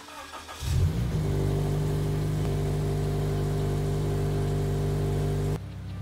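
Toyota 86's 2.0-litre flat-four boxer engine starting: brief cranking, then it catches about a second in with a rev flare and settles into a steady idle. The sound drops off abruptly near the end.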